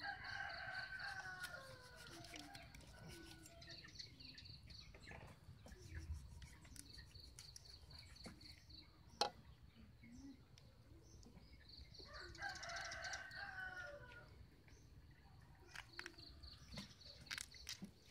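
A rooster crowing faintly twice, once at the start and again about twelve seconds later, each crow a falling call of two to three seconds. Between the crows a small bird's rapid high chirping comes and goes, and there is one sharp knock about nine seconds in.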